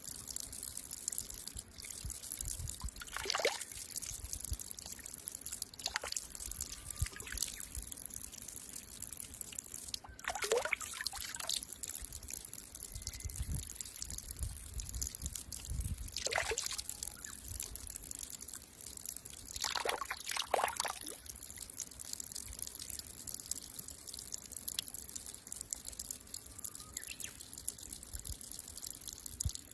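Water trickling steadily from the open end of a metal pipe and splashing onto rocks. A few brief, sharper sounds stand out now and then.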